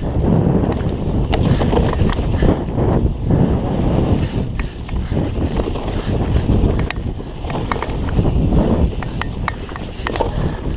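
Wind buffeting the microphone in a steady low rumble, with scattered short clicks and rattles.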